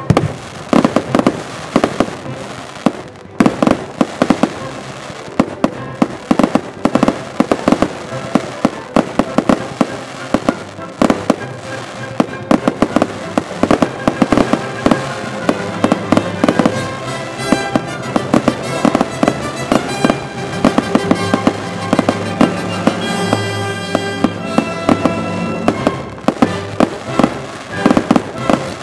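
Fireworks display: a dense run of sharp bangs and crackling bursts, often several a second, from shells, comets and fountains going off. Music plays underneath.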